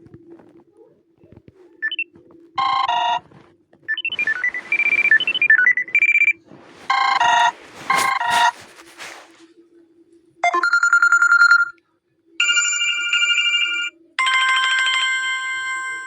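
Samsung Galaxy S2 notification and ring tones played one after another: about eight short electronic chimes, chords and note runs, each lasting up to about two seconds with short gaps between. A faint steady hum runs underneath.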